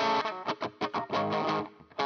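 Electric guitar played through a Mooer GE 150 amp-modelling multi-effects unit on its 'Dr Zee Reck' preset, a high-gain amp model with the gain at full. A chord rings, then comes a quick run of short, choppy strokes with brief gaps, and a fresh chord is struck near the end.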